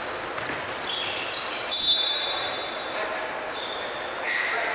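Basketball game on a hardwood gym floor: a ball bouncing and sneakers squeaking in short, high chirps, echoing in a large gym. One sharper thud comes about two seconds in.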